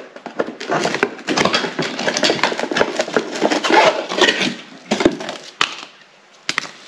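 Irregular clattering, knocking and scraping of hard parts and tools being handled, a quick run of clicks and knocks that thins out near the end.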